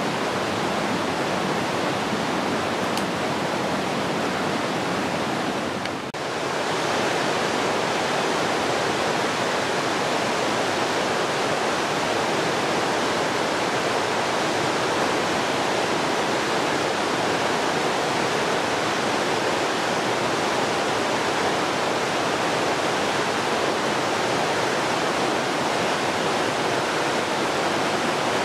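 Rushing river water, a steady even rush that dips briefly about six seconds in.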